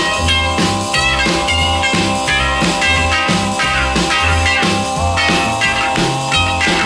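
Instrumental break of a 1950s rock and roll recording with no lead vocal: electric guitar figures over a steady pounding drum beat, with a chord held underneath.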